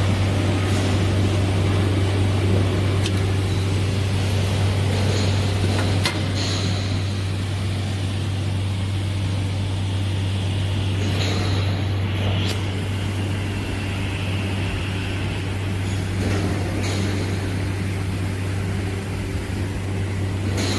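Single-head edge milling machine running, its cutter milling the edge of a steel plate: a steady low motor hum under a constant cutting noise, with a couple of sharp ticks.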